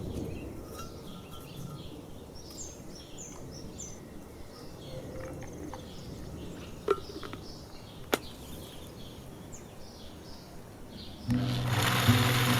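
Outdoor ambience with a low rumble and small birds chirping. Two sharp clicks come in the middle. Acoustic guitar music starts near the end.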